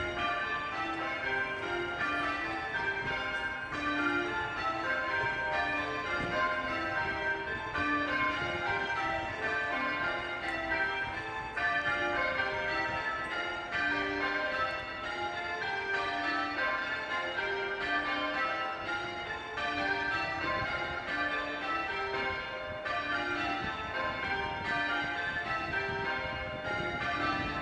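Church bells being change rung: an unbroken, even run of strikes on bells of several different pitches, each ringing on into the next.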